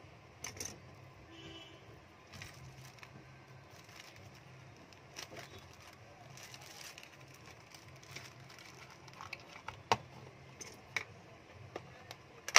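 Faint handling sounds of small parts at a repair bench: a thin plastic zip bag crinkling, and a few sharp clicks of tape and parts set down on the mat, the loudest about ten seconds in, over a low steady hum.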